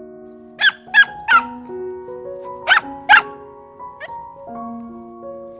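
Puppies yipping: three short, high-pitched yips in quick succession, then two more about a second later and a faint one about four seconds in. Background music with held notes plays throughout.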